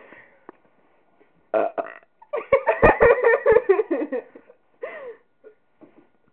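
A person belching on purpose: a short burp about a second and a half in, then a long, drawn-out belch of nearly two seconds, and a smaller one near the end.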